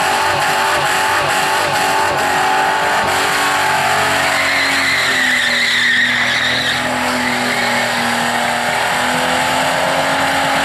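Holden VN Commodore's engine held at high revs through a burnout, its rear tyres spinning and squealing on the track. The engine pitch stays nearly steady, sags a little about halfway and climbs back near the end, with a high tyre screech strongest around the middle.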